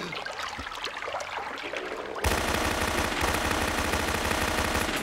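Automatic fire from a submachine gun as a cartoon sound effect: a long rapid burst that starts suddenly a little over two seconds in and is the loudest thing heard.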